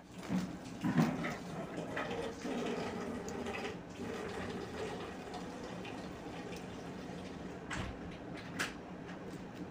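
A person eating: chewing and mouth sounds with scattered soft clicks, then a couple of sharp clicks near the end as a drink is taken from a can. A steady low hum runs underneath.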